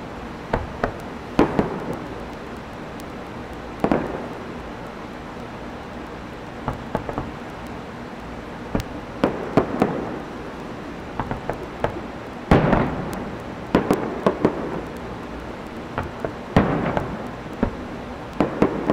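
Aerial fireworks shells bursting: an irregular string of sharp bangs and booms, each trailing off in an echo, with smaller pops between them. The loudest bursts come a little past the middle.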